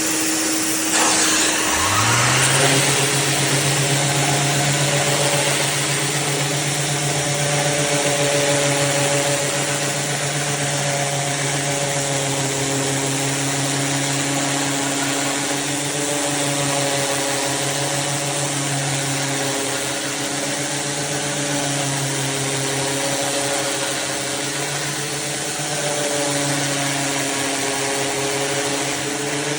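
Electric sander fitted with a 5-inch hook-and-loop sanding disc starting up: its motor rises in pitch about two seconds in, then runs with a steady hum.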